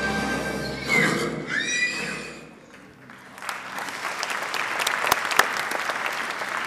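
A horse whinnies over music on a film clip's soundtrack, which fades out about two and a half seconds in. About a second later an audience starts applauding and keeps clapping steadily.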